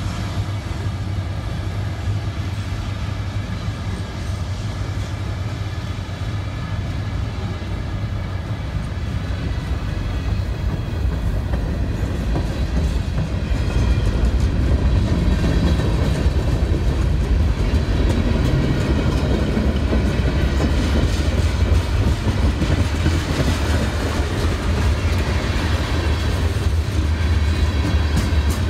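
Freight train passing close by: the trailing yellow SD70ACe-T4 diesel locomotives at first, then a string of freight cars rolling past with wheels clacking over the rail joints. The sound gets louder about halfway through as the cars go by.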